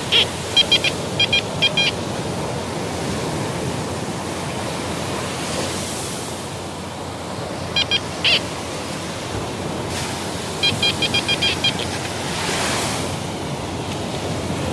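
TX-850 metal detector giving short clusters of high electronic beeps as its coil passes over a dug hole, signalling a metal target in the sand: a group near the start, two about eight seconds in, and a quick run around eleven seconds. Under them, the steady wash of surf.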